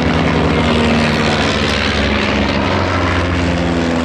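de Havilland Chipmunk's four-cylinder Gipsy Major engine and propeller droning steadily as the aircraft flies past.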